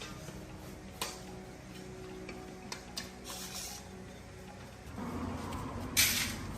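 Scattered clicks and light taps of tools and small parts being handled during a repair, with a short hiss in the middle. A louder knock comes about six seconds in.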